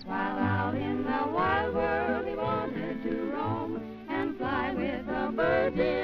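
Early cartoon soundtrack music: a wavering, vibrato-filled melody over a low bass line.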